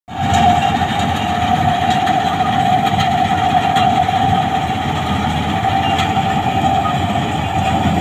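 Malkit 997 combine harvester running as it cuts through standing crop: a loud, steady drone of engine and threshing machinery with a steady high whine over it.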